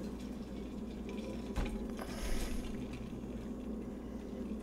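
Quiet room tone with a steady low electrical hum, a few faint clicks, and a short hiss just after two seconds in.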